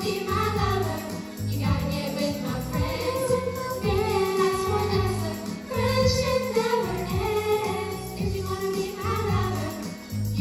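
A group of young women singing together into handheld microphones, over an accompaniment with a steady bass line and beat.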